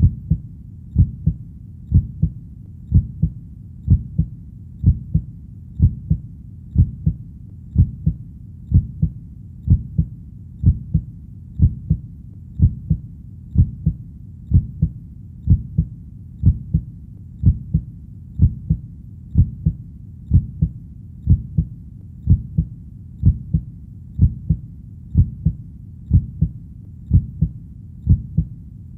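Heartbeat: a steady, low double thump (lub-dub) about once a second, over a faint low background rumble.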